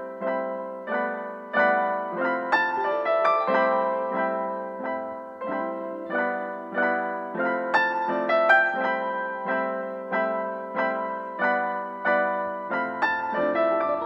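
Background piano music: a steady run of single struck notes, each fading away, played at an even pace.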